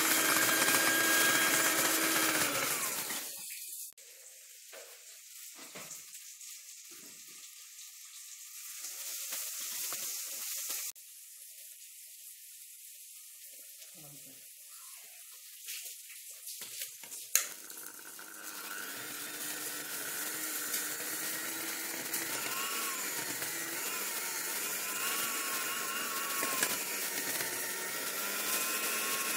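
Electric hand mixer beating cake batter in a glass bowl; the motor winds down and stops about three seconds in. After a long pause with faint handling sounds, a click about seventeen seconds in and the mixer runs again steadily, its pitch wavering slightly under the load of the batter.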